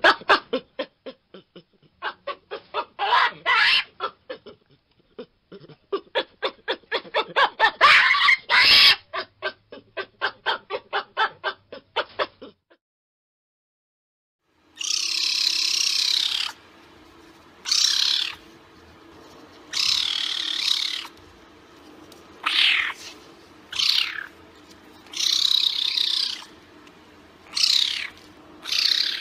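Yellow baboons calling in runs of short, rapid pulses, several a second. After a short gap, a caracal gives about eight separate high-pitched calls, one every second or two.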